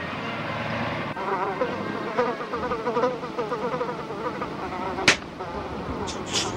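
A buzzing insect, like a fly, its pitch wavering up and down. There is a sharp snap about five seconds in and a few short hissing bursts near the end.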